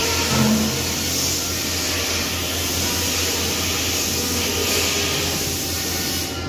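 Steady workshop machinery noise: a low electrical hum with a steady hiss over it. The hiss stops abruptly at the very end.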